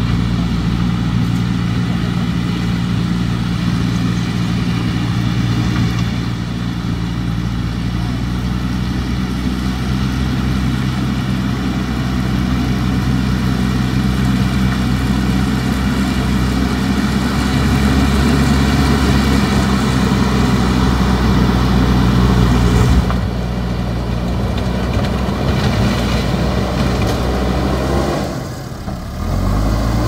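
JCB backhoe loader's diesel engine running steadily under load while the machine pushes and spreads gravel with its front bucket. Near the end the engine note drops briefly and then rises as it revs up.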